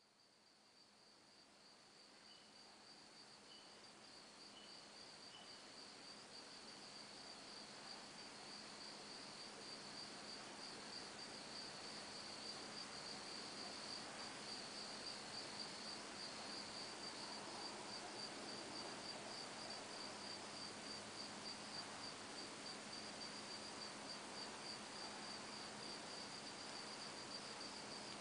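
Night chorus of crickets: a steady, high-pitched, finely pulsing trill that swells up over the first several seconds and then holds. Four short chirps at a lower pitch sound about a second apart in the first few seconds.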